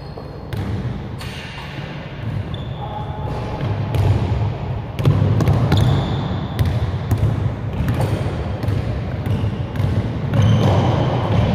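A basketball being dribbled on an indoor gym floor, its bounces coming about twice a second from about halfway, with short high sneaker squeaks as the players move, all ringing in a large gym.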